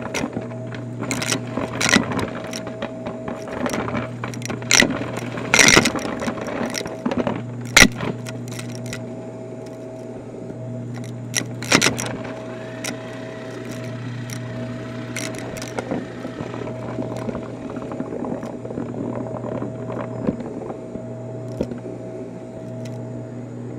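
Corded upright bagless vacuum cleaner running steadily on carpet, a constant motor hum with a faint whine. Sharp clicks and rattles of small debris being sucked up the nozzle and into the dust cup, frequent in the first half and fewer later.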